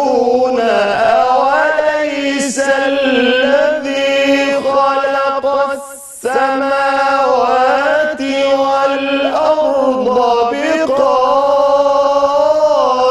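A man reciting the Quran unaccompanied in the melodic Egyptian mujawwad style, with long held notes and ornamented turns. There is a short pause for breath about six seconds in.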